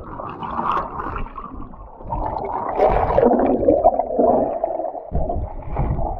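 Muffled gurgling and churning of water, heard with the microphone under water.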